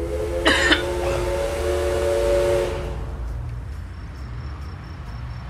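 A horn sounds a steady three-note chord, starting just after the beginning and held for about two and a half seconds before it stops. A couple of sharp clicks come shortly after it begins. A steady low road rumble runs underneath.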